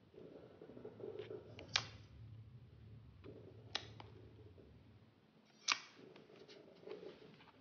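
Clear slime being squished and poked by hand in a plastic tub, with soft squishing and three sharp air-bubble pops about two seconds apart.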